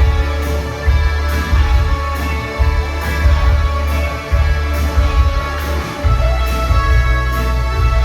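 New wave band playing live: heavy bass and sustained chords over a steady drumbeat.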